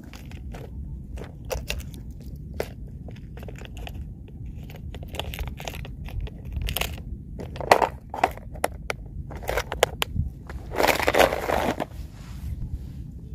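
Footsteps crunching and scraping on a dry, cracked mud embankment, coming as irregular short crunches, with a louder scuffing rush about eleven seconds in.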